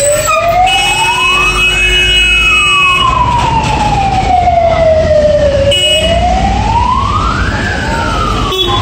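Fire engine siren wailing as the truck passes, its tone climbing for about a second and a half, then sliding down for nearly four seconds, twice over.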